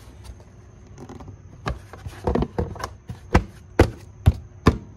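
Plastic engine cover on a BMW 2.0-litre engine being pressed and tapped down onto its mounts: a run of about eight sharp knocks, roughly two a second, starting about a second and a half in and loudest toward the end.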